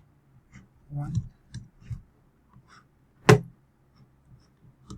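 A single sharp knock about three seconds in, the loudest sound, with a faint murmur of voice about a second in and a few small clicks and mouth noises around it.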